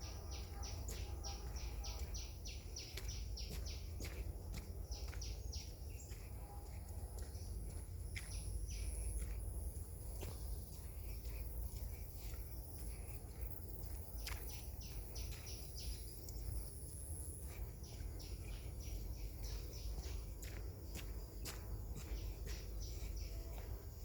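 Outdoor ambience with birds chirping in rapid runs of short high notes, several a second, that come and go, over a steady low rumble. A thin high whine sounds through the middle.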